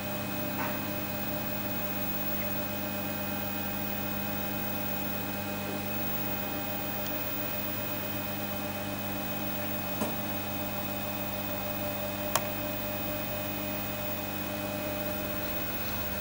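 Steady electrical mains hum with a stack of even overtones from the powered lamp and meter test setup. Two sharp clicks come past the middle, a couple of seconds apart.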